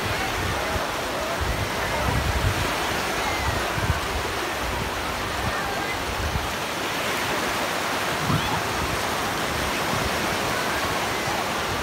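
Small sea waves breaking and washing over the shallows: a steady hiss of surf, with distant shouts and chatter from swimmers.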